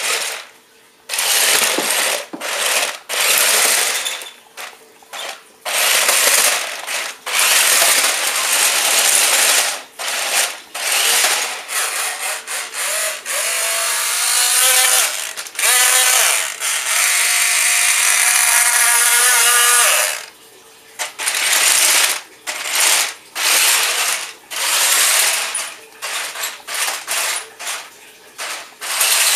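Tyco Monster Traxx RC toy's electric drive motors and gearboxes whirring in repeated short bursts as it is driven in starts and stops, running on its high setting with a fully charged battery. A longer run of several seconds in the middle carries a whine that rises in pitch as it speeds up.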